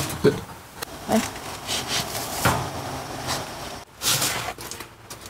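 Scattered rustles and light knocks of people moving about, with a brief break partway through.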